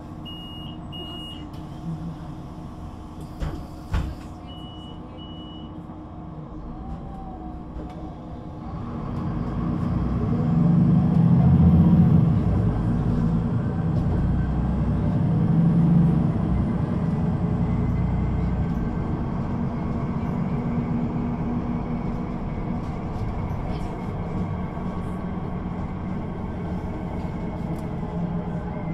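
A Solaris Urbino 18 III articulated bus's upright DAF diesel engine, with its Voith automatic gearbox, idling at first, with two pairs of short beeps and a couple of knocks. About 8 s in it accelerates away, its revs climbing and dropping back twice as the gearbox shifts up, then runs steadily at speed.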